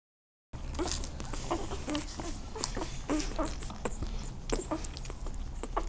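Newborn Irish wolfhound puppies squeaking and giving little whimpering cries while they nurse, many short calls overlapping with small sharp clicks, starting about half a second in.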